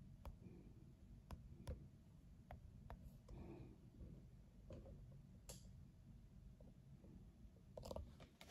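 Faint, scattered light clicks and taps from hands handling things on a side table while cleaning, with a soft rustle about three and a half seconds in.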